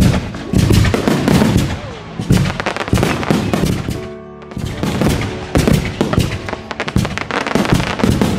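Aerial firework shells bursting in a rapid run of bangs and crackling, with a short lull about four seconds in.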